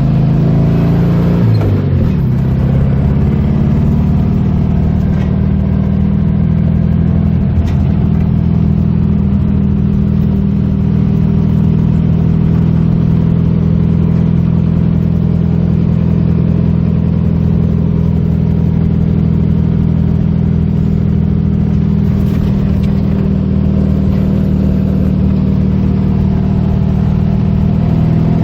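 Car engine running, its pitch dropping over the first couple of seconds and then holding one steady note.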